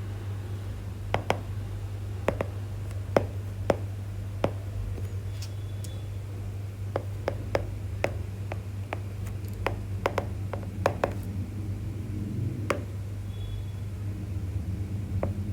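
Irregular short taps and clicks of a writing tool striking a writing surface as a question is written out, most frequent in the middle, over a low steady hum.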